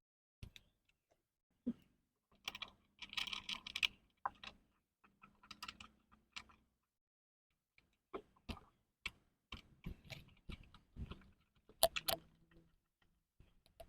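Irregular clicks, knocks and rustling of hard plastic pressure-washer parts being handled and fitted together, with a stretch of rustling a few seconds in and a run of sharp clicks in the second half.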